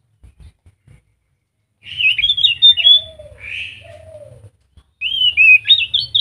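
Caged anis macan thrush in full song: two loud runs of fast, warbling high notes, about two seconds in and again from about five seconds in, with a few lower falling notes between them.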